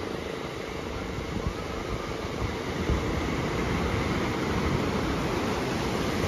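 Ocean surf breaking and washing up the sand in a steady rush, with wind buffeting the microphone. The noise grows a little louder about three seconds in.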